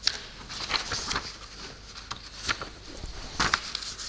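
Irregular soft rustling with scattered light clicks and taps, several spikes louder than the rest, in a quiet room.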